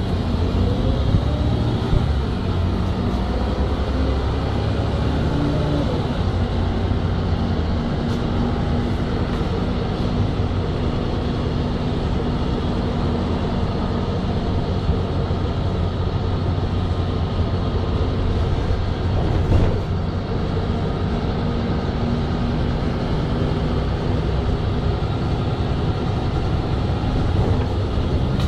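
City bus heard from inside the passenger cabin while under way: a steady engine and road rumble, the engine's pitch rising and falling in the first few seconds as it changes speed. A single brief knock comes about two-thirds of the way through.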